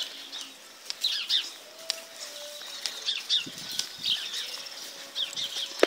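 Small birds chirping in short quick groups, about four times, over faint rustling and a few sharp clicks.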